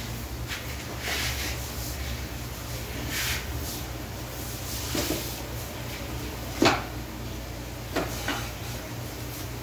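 A long-handled brush scrubbing stone steps in scattered scraping, swishing strokes, with one sharper knock about two-thirds of the way through, over a steady low hum.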